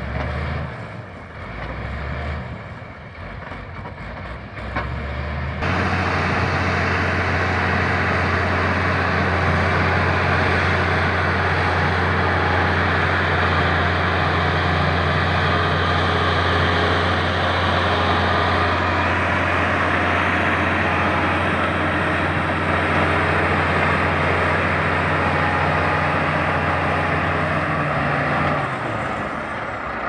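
Crawler bulldozer's diesel engine running as it pushes soil, heard from a distance at first. From about six seconds in it is close and loud: a steady, low, even drone. It eases off just before the end.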